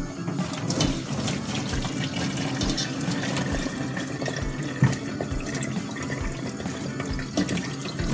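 Hot water poured steadily from a stainless steel kettle into a stainless steel colander in the sink, splashing over the food in it.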